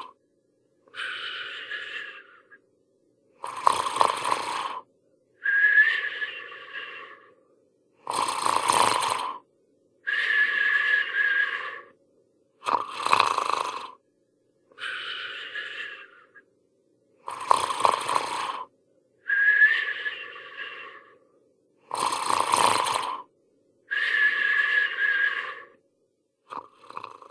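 Hanna-Barbera cartoon snoring sound effect: a rough, rasping snore on the in-breath alternates with a whistling out-breath. The pair repeats in a steady cycle about every four and a half seconds.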